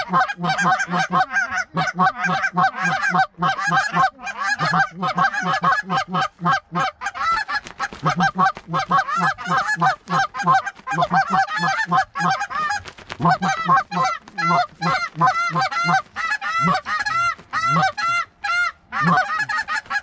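Geese honking and clucking in a rapid, unbroken run of short calls, several a second and overlapping, close and loud.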